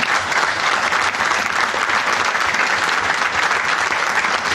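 A crowd applauding, many hands clapping in a steady, dense patter.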